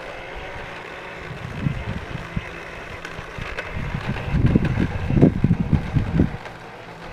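Fisher-Price bubble mower toy being pushed across grass, its little motor giving a faint steady whir. From about four seconds in, wind gusts buffet the microphone with low rumbling.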